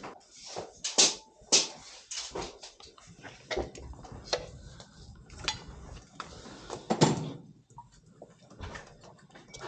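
Irregular knocks, taps and clatter of boards and tools being handled, with some scraping between them. The loudest knocks come about a second in, at about one and a half seconds and at about seven seconds.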